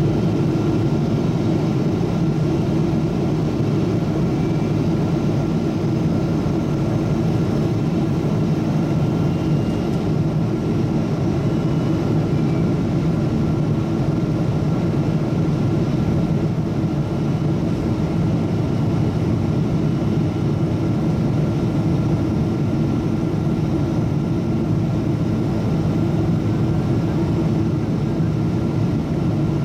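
Steady cabin drone inside a Boeing 777-200ER airliner on descent to land: jet-engine hum and rushing airflow heard from a window seat beside the engine, with a faint steady high tone above it.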